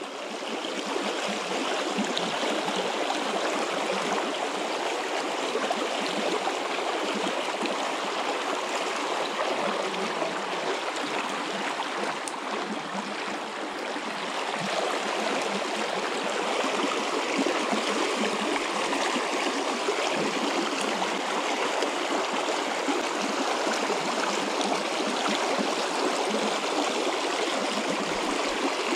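Shallow, rocky mountain creek rushing and gurgling over stones in a steady flow.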